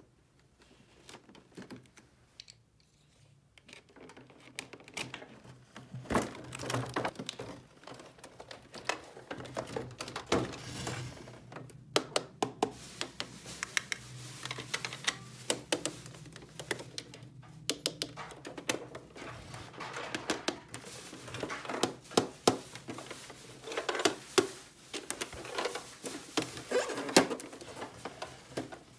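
Small plastic toy pieces handled and set down by hand: many light, irregular clicks and taps, thicker from about six seconds in.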